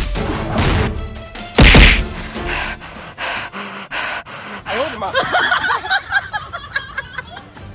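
Edited-in sound effects over music: one heavy whack about a second and a half in, then softer music with warbling, sliding tones in the second half.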